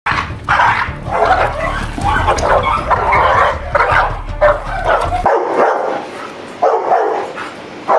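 Dogs barking aggressively in rapid, repeated barks, a dog lunging on its leash at a protection-training decoy. A low rumble under the first five seconds stops suddenly, and the barking goes on in fewer, spaced barks.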